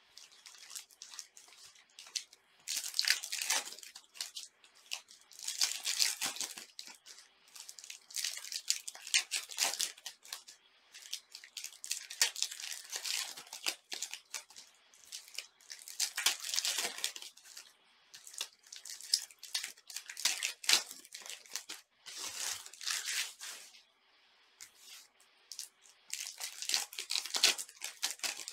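Foil trading-card pack wrappers being torn open and crinkled by hand, in a rustling burst every second or two.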